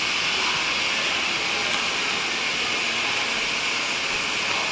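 Steady, loud machinery noise with a strong hiss, like large fans or air-handling equipment running continuously in an industrial hall.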